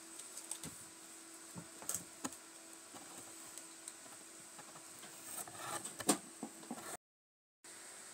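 Faint scattered scratchy clicks and taps of a cat's claws on a cat tree's sisal-rope post and carpeted platform as it climbs and paws about, with a denser run of louder ones a little past the middle. About seven seconds in the sound drops out completely for half a second.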